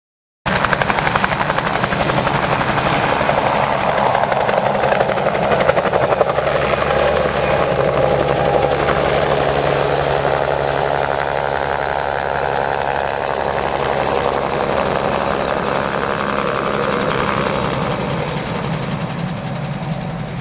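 Crop-spraying helicopter flying, its rotor and engine running steadily; the sound cuts in abruptly just after the start, swells and eases a little, and fades slightly near the end.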